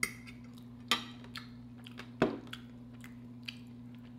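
Metal fork clinking against a glass plate during a meal: a few sharp clicks, the loudest about a second in and just past two seconds, with softer eating sounds between them over a steady low hum.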